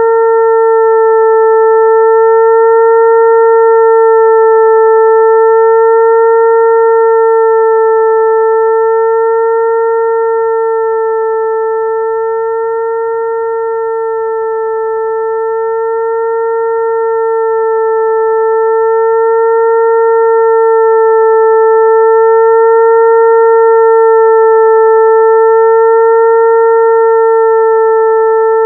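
Electronically generated mosquito-attracting tone: a steady hum near 450 Hz with several overtones, imitating a mosquito's wing buzz. The pitch wavers slightly, and the loudness swells slowly, dipping about halfway through.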